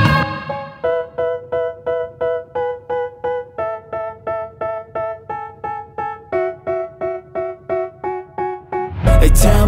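Background music: a keyboard plays a repeating pattern of notes, about three a second, with no drums. The full beat with bass comes back near the end.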